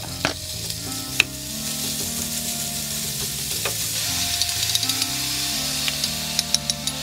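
Minced meat sizzling as it fries in a frying pan, stirred and broken up with a wooden spatula that taps the pan a few times.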